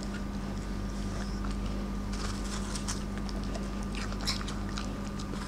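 Husky nibbling a pear with its front teeth: faint, scattered small crunches and wet licks, most of them between about two and five seconds in. A steady low hum runs underneath.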